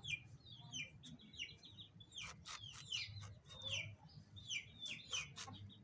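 Faint bird chirping: many short, falling chirps follow one another, a few each second.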